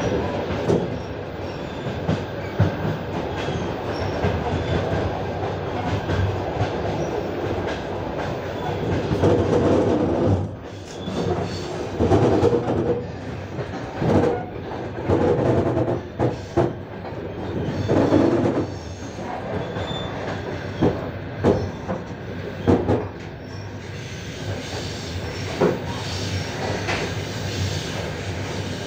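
Train carriage running along the track, heard from inside: a steady rumble of wheels on rails with irregular clicks and knocks. The rumble swells louder several times through the middle, followed by a few sharp knocks.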